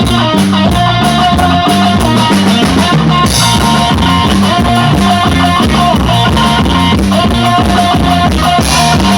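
Band playing instrumental music: a drum kit keeps a steady beat under bass and guitar.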